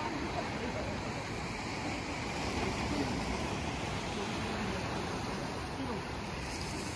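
Sea surf washing in against a concrete seawall in a steady, even rush, with wind on the microphone.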